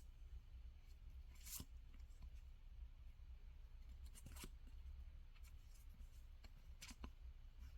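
Faint, brief rustles and scrapes of packaging being handled or cut, four or five short sounds over a low steady hum.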